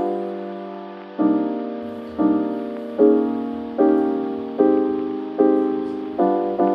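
Background music: slow piano chords, struck about once a second, each fading before the next.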